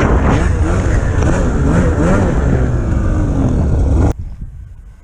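Polaris Pro RMK 800 snowmobile's two-stroke engine running loud, its pitch rising and falling again and again as the throttle is worked. The sound cuts off abruptly about four seconds in.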